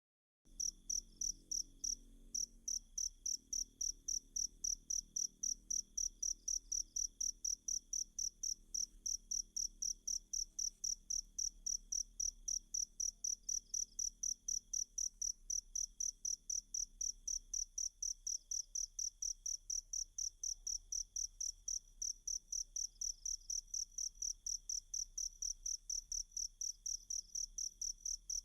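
Cricket chirping: a fast, very regular train of short, high-pitched chirps, about three a second, starting about half a second in, over a fainter steady high trill.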